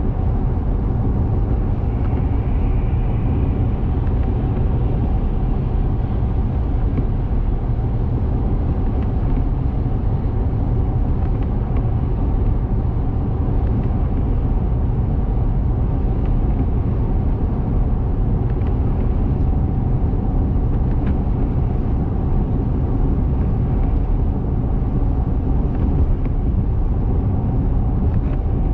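Steady road noise of a car driving at highway speed, heard from inside the cabin: a constant low rumble of tyres and engine with a fainter hiss above it.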